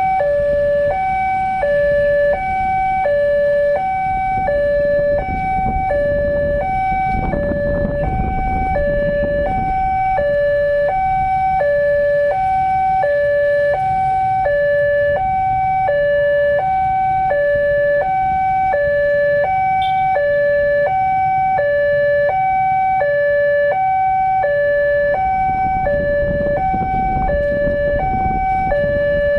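Railway level-crossing warning alarm sounding a steady two-tone signal, a higher and a lower tone alternating at an even pace, over a low rumble of road traffic that swells twice as vehicles pass. The alarm signals that a train is approaching and the crossing is closed.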